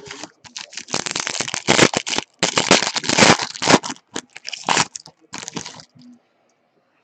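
A trading-card pack wrapper being torn open and crumpled: a run of crinkling rustles lasting about five seconds, with two short pauses.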